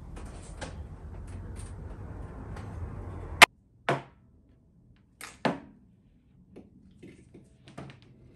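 Handling sounds of a desk lamp being set up on a desktop: a sharp click, then a few separate knocks and taps as the lamp's base and cord are handled. Before the click, a steady low hum with faint light taps.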